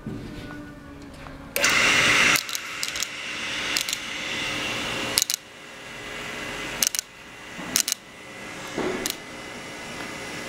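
Pro Cut PFM-900 on-car brake lathe running through its automatic self-adjustment before it is ready to cut: a steady motor hum with scattered clicks and a brief louder burst of noise about two seconds in.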